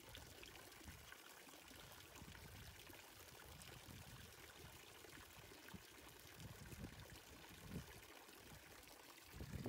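Small garden fountain, water jetting from statue spouts and splashing steadily into a shallow tiled basin; faint.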